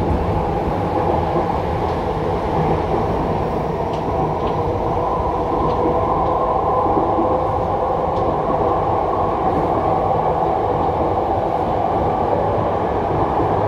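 Jakarta MRT train running, heard from inside the passenger car: a steady rumble of wheels on the track with an even mechanical hum.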